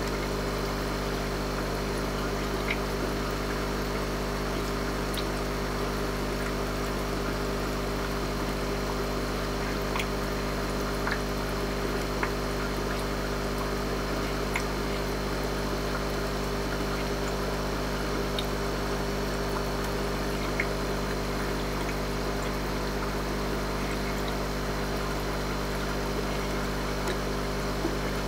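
Steady aquarium filtration noise: a constant mechanical hum with the bubbling and trickling of an air-driven sponge filter, and a few faint ticks here and there.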